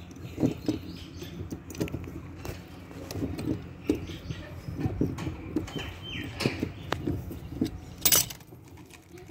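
Irregular scraping and tapping of a small hand tool worked against a water pipe joint, with one louder, longer rasp near the end.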